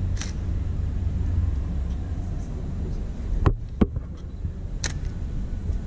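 Steady low engine rumble echoing in a vaulted canal tunnel, with a few sharp clicks, the loudest two close together about halfway through.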